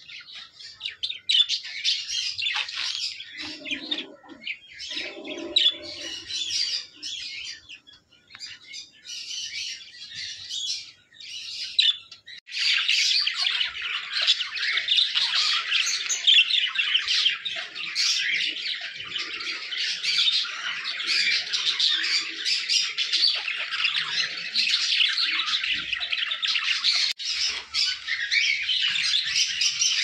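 Budgerigars chirping and squawking: at first short separate bursts of calls from a pair, then, partway through, a whole group of budgies chattering together without a break.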